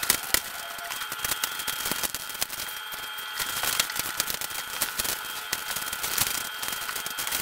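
Hands working at a cardboard product box: a dense run of small, irregular clicks and crackles as the box is picked at and handled.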